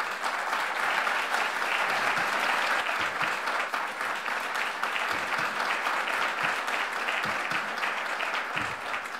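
Audience applauding: many people clapping steadily together.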